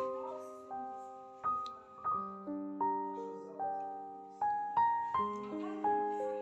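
Slow, gentle solo piano music: single notes struck one after another, each left to ring and fade.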